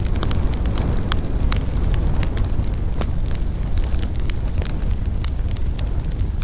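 Campfire burning, with a steady low roar of the flames and frequent sharp crackles and pops from the burning wood.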